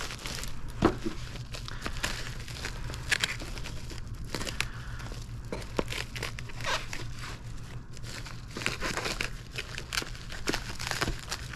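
Plastic packaging crinkling and tearing as it is handled and cut open with a hatchet blade, with irregular crackles throughout.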